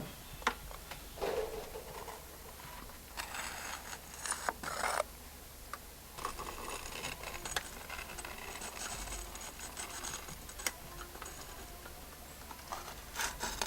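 Piece of copper sheet scraping dross out of a solder tinning trough: short bursts of metal scraping with sharp clicks and taps between.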